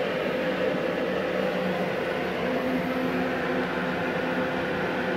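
MIG-MAG 350N-GKR inverter MIG welding machine switched on and idling: its cooling fan running steadily with a steady electrical hum.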